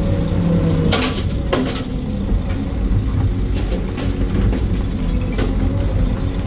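Hydraulic excavator's diesel engine and hydraulics running steadily under load, heard from inside the cab. Two sharp clanks come about a second in, and smaller knocks of soil and rocks falling follow as the bucket empties into a dump truck's bed.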